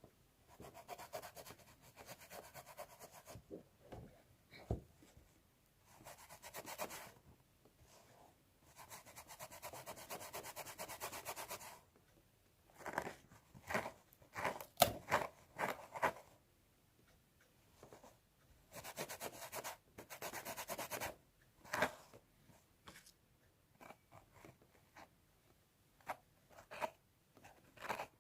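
Scalp being scratched, in bursts of quick rasping strokes a few seconds long with short pauses between, turning to sharper, crackly single scratches in the second half.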